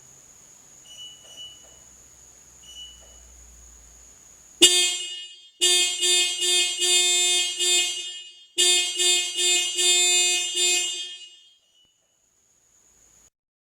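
Car alarm sounding through the car's horn: a loud horn starts suddenly about four and a half seconds in and blares in quick repeated honks, in two runs with a short break between, then stops about eleven and a half seconds in. Before it, a faint steady high whine with a few short beeps.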